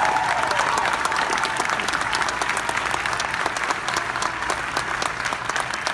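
Audience applauding: many people clapping at once, slowly dying down toward the end.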